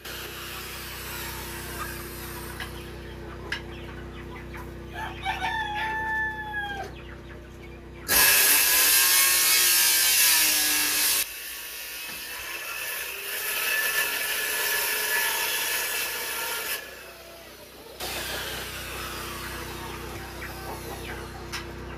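A rooster crows once, about five seconds in. About eight seconds in, a circular saw cuts into plywood wall sheathing for about three seconds, the loudest sound here, and chickens cluck around it.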